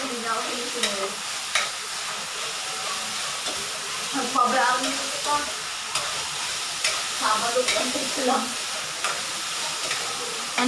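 Ground meat frying in a stainless steel wok on a gas burner: a steady sizzle, with a metal spatula stirring and clicking against the pan every second or two.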